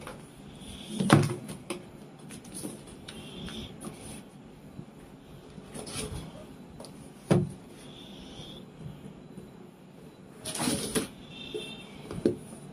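Books being handled out of a cardboard box and set down on a table: a few scattered soft knocks and rustles of paper and cardboard, with a longer rustle a little before the end.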